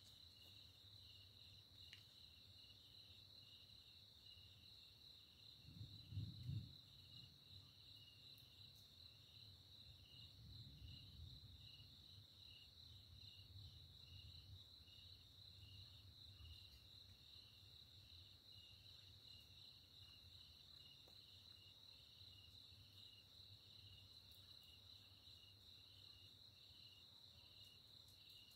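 Faint night chorus of crickets chirping steadily, with a regular pulse. Distant thunder rumbles low about six seconds in, the loudest sound, and again more softly around ten to twelve seconds in.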